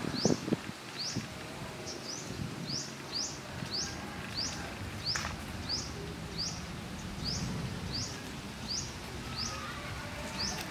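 A bird repeats one short, high, sweeping chirp about twice a second. Leaves and undergrowth rustle briefly near the start as the puppies push through the plants.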